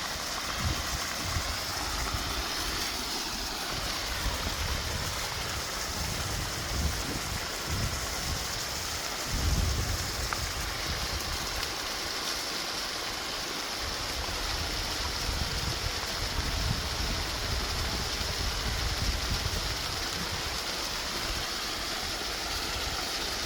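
Steady rush of water pouring and splashing, from a pipe spouting cold spring water out of the mountainside near a trickling waterfall. Irregular low bumps and rumbles come and go on top of it, the largest about nine seconds in.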